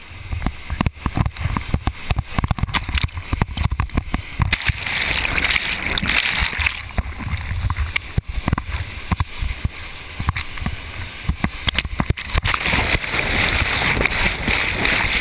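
Whitewater rapid rushing around a kayak, with many hard splashes and thumps of water breaking over the boat and against the camera. The kayak is off line on the rapid, and near the end the camera is plunged into the foaming water.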